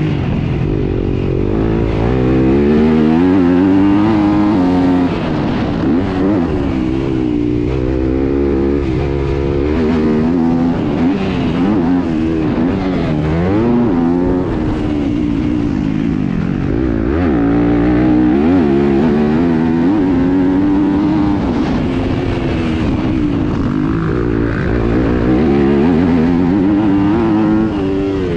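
Dirt bike engine being ridden hard, revving up and backing off again and again, its pitch climbing on the throttle and dropping off for the corners.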